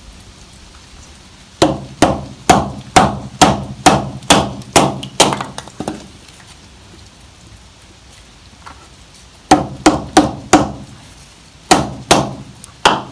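A Fiskars X5 hatchet is being batoned through a damp log: a wooden baton knocks on the back of the hatchet head in runs of sharp strikes, about two a second. A first run of about ten strikes is followed, after a pause of a few seconds, by about five more and another short run near the end.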